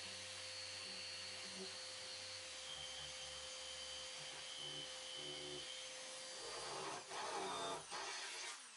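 Random orbital sander running in forced-rotation mode with 80-grit paper, stripping a steel car fender to bare metal: a steady motor whine. In the last two seconds the sanding gets louder and rougher.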